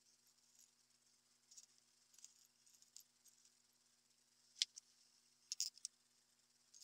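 Small steel push-drill points being handled: faint rubbing on an abrasive pad and in a cloth rag, then a few light, sharp clicks of the bits knocking together, one about four and a half seconds in and a quick cluster a second later.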